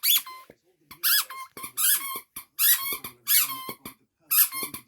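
Rubber squeaky dog toy being chewed and squeezed by a dog, squeaking about six times in a rough rhythm, each squeak short and high-pitched with a bend in pitch.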